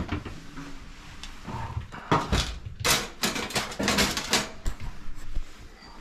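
A run of sharp clicks and knocks, several in quick succession between about one and a half and four and a half seconds in, from gloved hands handling a screwdriver and wires at a clothes dryer's terminal block.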